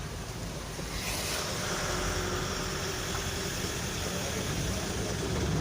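Steady road and wind noise from a moving vehicle.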